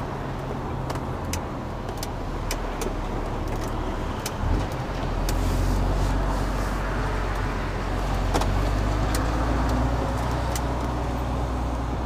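Lorry engine running low and steady, heard from inside the cab while the articulated truck crawls through a tight turn. It grows louder about five seconds in and again a few seconds later. Scattered light clicks and rattles sound over it.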